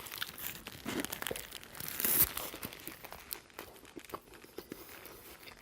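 Paper burger wrapper crinkling and rustling close to the microphone, with crunching as a Roadhouse King burger with onion rings is bitten into. The loudest rustle and crunch comes about two seconds in.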